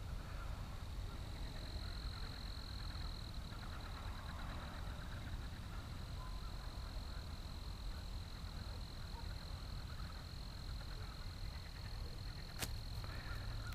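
A steady high insect trill carries on over a low, even rumble of outdoor background noise. A single sharp click comes near the end.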